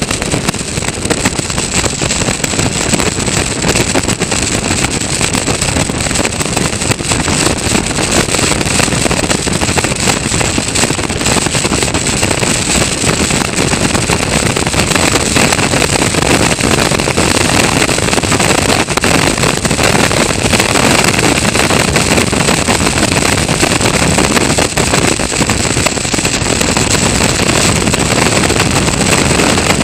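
Caterham Roadsport race car's 1.6-litre Ford Sigma four-cylinder engine running hard at racing speed, heard from an onboard camera with wind rushing over the microphone; it gets a little louder about halfway through.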